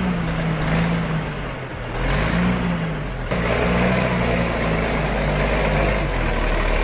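Heavy logging truck engine running, its pitch rising and falling, with an abrupt change in the sound about three seconds in.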